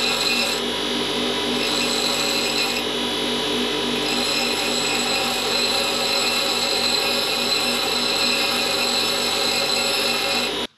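Titan bench grinder running, with the cut end of a stainless threaded bar ground against its wheel to dress the thread so a nut will start on it. The higher grinding noise changes a few times in the first four seconds as the bar is pressed on and eased off. The sound cuts off suddenly at the very end.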